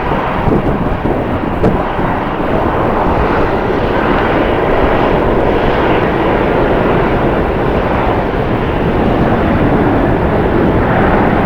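Airliner jet engines running, a loud steady rush that builds slightly over the seconds, with wind buffeting the microphone.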